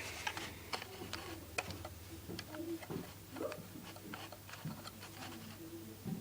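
Plastic Lego pieces being handled and pressed together, making a string of light, irregular clicks.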